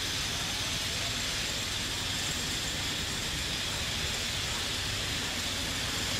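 Steady outdoor background noise: an even hiss with a low rumble, with no distinct calls, knocks or other events.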